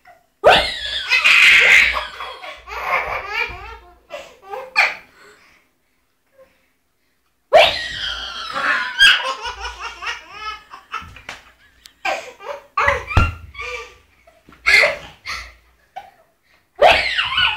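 A baby laughing hard in repeated bursts of giggles and belly laughs, with a break of about two seconds roughly a third of the way in.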